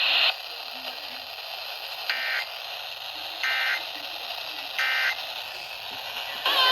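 NOAA Weather Radio over a steady static hiss, sending three short bursts of warbling EAS/SAME data tones about a second and a half apart: the end-of-message code that closes a severe thunderstorm warning broadcast.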